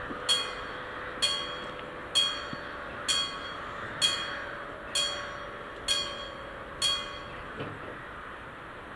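Level-crossing warning bell striking about once a second, each stroke ringing on, as the half-barriers lower. The strokes stop near the end, once the barriers are down, leaving a faint steady hum.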